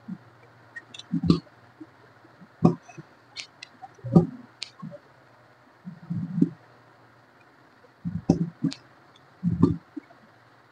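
Rubik's cube, freshly lubricated, being handled and wiped with a tissue: irregular clicks and soft knocks of the plastic pieces, with short bursts of rubbing.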